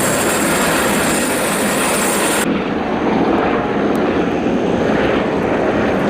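Helicopter sound effect: steady rotor and engine noise, with a high whine that cuts off about two and a half seconds in.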